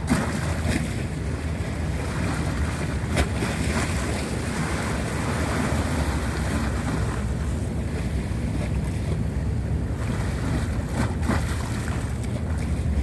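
Sea waves washing on the shore, with wind buffeting the microphone. A few brief clicks come through, one about three seconds in and one about eleven seconds in.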